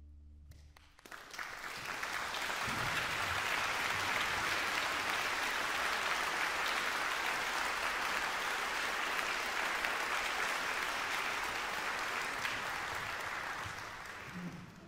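Concert audience applauding: a brief lull, then applause starts about a second in, holds steady, and fades near the end.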